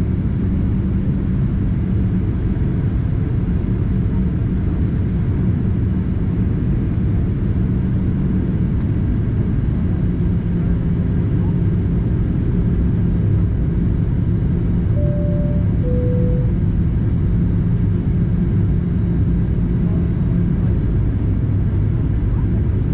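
Steady low rumble of cabin noise from engines and airflow inside a Boeing 737-800 in flight. About 15 seconds in, the cabin chime sounds once as two notes, high then low.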